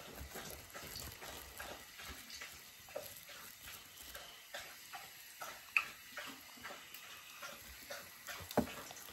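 Light, irregular crackling and clicking, a few small pops a second, with a sharper click about six seconds in and another near the end.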